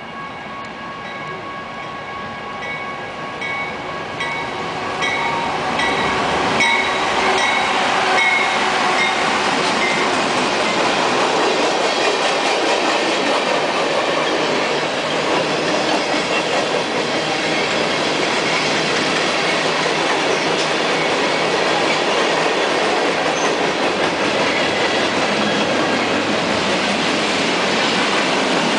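BNSF freight train, pulled by diesel locomotives, approaching and passing close by, growing louder over the first several seconds. A steady high tone sounds over the first third and fades out. It gives way to the heavy rolling rumble and clatter of tank cars, flatcars and gondolas going past on the rails.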